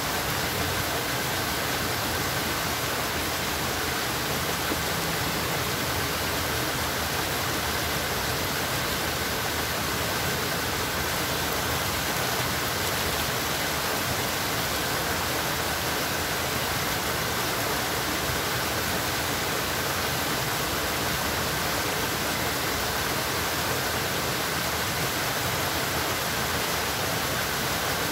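Steady rushing of flowing water, an even unbroken hiss.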